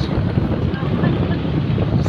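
Steady low rumble of road-vehicle engine and traffic noise, with wind buffeting the microphone.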